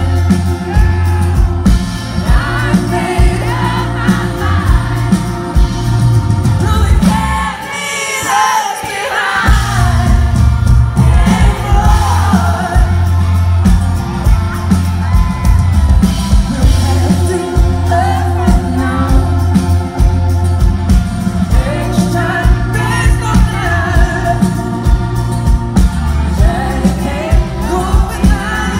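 Live band playing a pop-rock song with a male lead vocal over guitar, keyboards, bass and drums. The bass and drums drop out for a moment about eight seconds in, then come back in.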